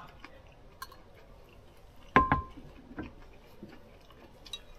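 Tableware clicking and clinking at a meal, with one louder knock about two seconds in that rings briefly, as of a cup or dish set down hard, and a smaller knock a second later.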